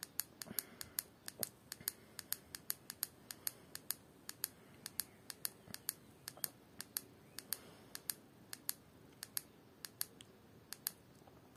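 Rapid, repeated clicks of a Baofeng UV-5R handheld radio's arrow key, pressed about two or three times a second to scroll through the radio's menu.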